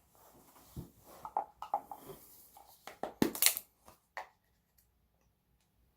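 Close handling noise: rustling and light clicks, with one louder, sharper scrape or clatter a little after three seconds in.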